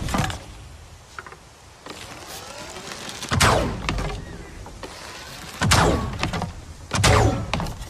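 Heavy bow-and-arrow sound effect: three sharp, loud shots, each followed by a falling swish that dies away within about half a second. The second and third come close together, near the end.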